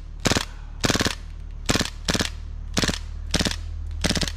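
Airsoft rifle firing in short bursts, about two a second, each burst a quick rattle of several shots, over a steady low hum.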